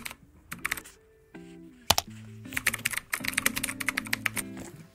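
Keyboard typing sound effect, runs of quick key clicks matching a typewriter-style text animation, over background music with held, stepping notes.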